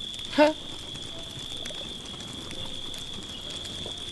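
Night-time campfire ambience: a steady high-pitched drone of night insects with faint crackles from the fire. A man's short grunt about half a second in.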